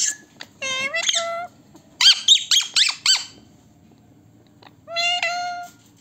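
Ringneck parakeets calling: a rising, drawn-out squawk, then a quick run of about six short chirping notes, and another drawn-out call near the end.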